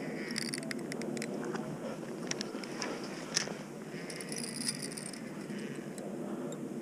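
Steady rush of river water, with scattered small clicks and rattles on top, the sharpest about three and a half seconds in.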